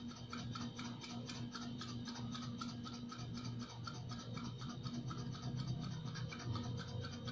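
GOMCO 3060 suction machine's electric diaphragm pump running with a steady hum and a fast, uneven ticking. It runs but pulls only weak suction, its flapper valve clogged with built-up dirt.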